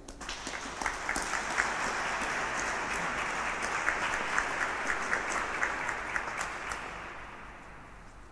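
Audience applauding, swelling up just after the start, holding steady, then dying away about seven seconds in.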